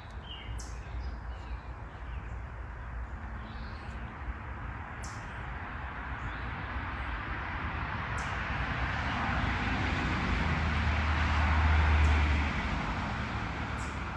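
A vehicle going past: a rumble and road noise that slowly swell to a peak about twelve seconds in, then fade.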